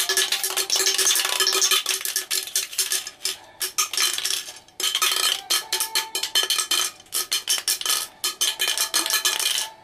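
A one-yen coin rattling inside an aluminium Coca-Cola can as the can is shaken: rapid metallic clattering with a few short pauses.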